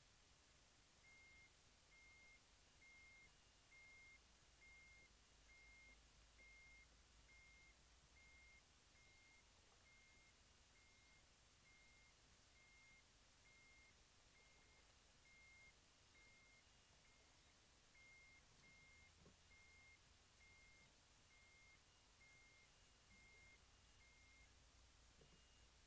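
Backpack electrofisher's warning beeper: a faint, short high beep repeating a little faster than once a second, the signal that the anode is live and current is flowing into the water. The beeping starts about a second in and stops near the end.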